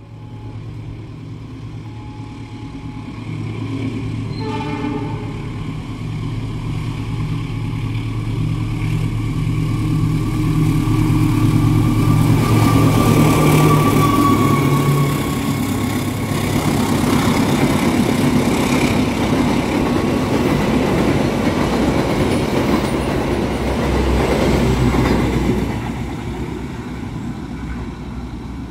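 Passenger train hauled by a diesel-electric locomotive passing close by: a steady engine drone, a brief horn sound about five seconds in, then the loud rumble and clatter of the coaches rolling past, easing off a few seconds before the end.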